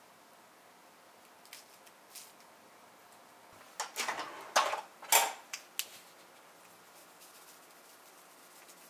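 Light clicks and clatters of bamboo yakitori skewers being handled on a metal tray: two soft ticks early, then a short cluster of sharper knocks about four to six seconds in.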